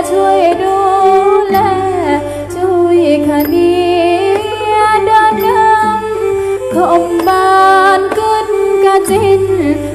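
Live traditional Northeastern Thai (Khmer-style) ensemble music playing continuously for the dance, a winding, ornamented melody line over a steady low hum with light percussion.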